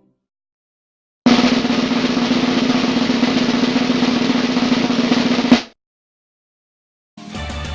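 Snare drum roll lasting about four seconds, ending in one loud hit.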